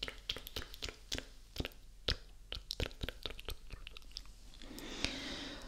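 Close-up wet mouth sounds right at the microphone: a fast, irregular run of sharp lip and tongue clicks, giving way near the end to a soft breathy hiss.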